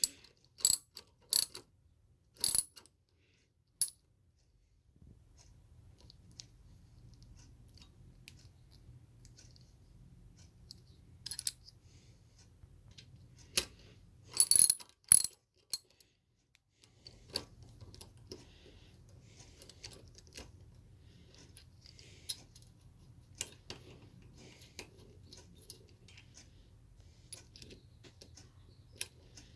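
Metal-on-metal clinks and clanks from a small Pittsburgh ratchet and its socket being handled at a bench vise. Several sharp clanks come in the first few seconds and a loud pair comes around the middle. After that there are lighter, irregular ticks over a faint low hum.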